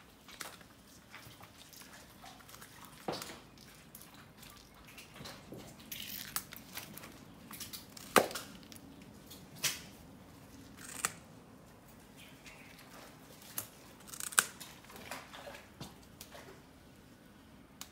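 Crocodiles crunching snail shells and snapping their jaws: scattered sharp cracks and clicks, the loudest about eight seconds in and again near fourteen seconds.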